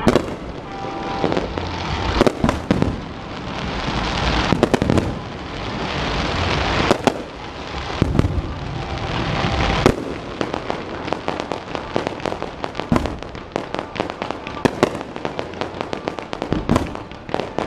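Aerial fireworks going off: repeated loud bangs of bursting shells over a dense wash of crackle and hiss. From about ten seconds in, the bursts come as a rapid string of sharp pops.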